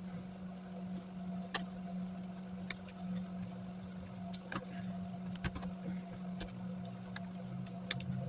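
Scattered small clicks and taps from handling the laptop's display cable and its ZIF connector, about eight in all, over a steady low hum.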